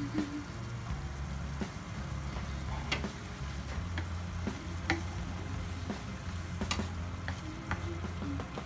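Chicken liver adobo sizzling in a frying pan while it is stirred with a wooden spatula, with several sharp taps and scrapes of the spatula against the pan.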